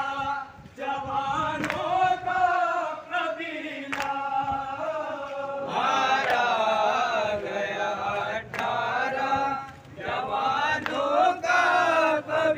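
Many men chanting a mourning lament (nauha) together in unison, the chant rising and falling in long sung phrases. A few sharp smacks cut through it.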